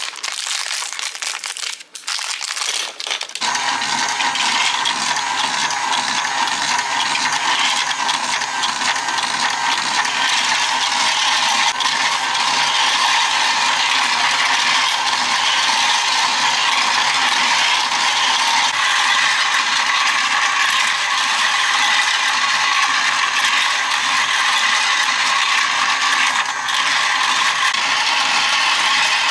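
Battery-powered plastic escalator track toy running: its motor and stepping stair mechanism clatter steadily as the small figures are carried up. About three and a half seconds in, the clatter starts, after a few seconds of plastic bag crinkling.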